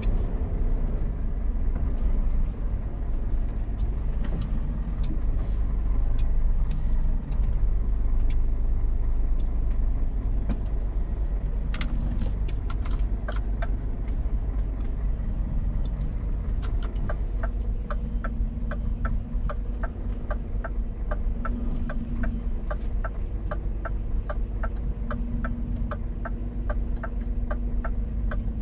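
Scania R450 lorry's diesel engine running steadily under way, a continuous low rumble. A little past halfway a regular clicking starts, about two clicks a second.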